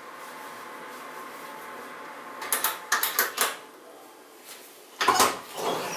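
A steady hum from the oven, then a quick cluster of clicks at the oven controls. About five seconds in the oven door is pulled open with a loud clunk and a creak of its hinges.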